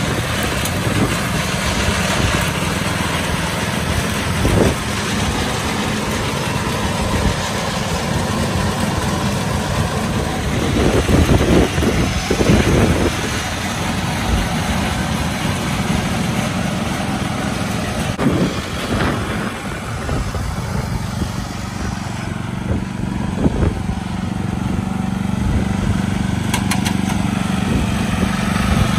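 The Briggs & Stratton 11-horsepower engine of a John Deere 111 riding mower running steadily while the mower drives over grass. It briefly gets louder for a couple of seconds near the middle.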